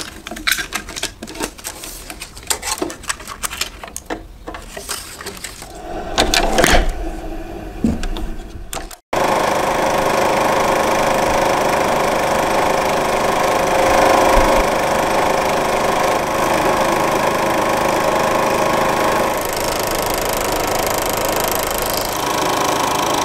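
Clicks and rattles of 16 mm film being threaded by hand into the slot-load path of an Elf (Eiki) EX-300SL-2 projector. After a cut about nine seconds in, the projector's motor and intermittent film mechanism run steadily.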